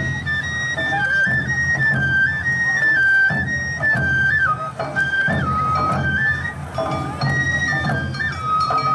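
Awa Odori festival music: a Japanese bamboo flute (shinobue) plays a stepping melody over drums.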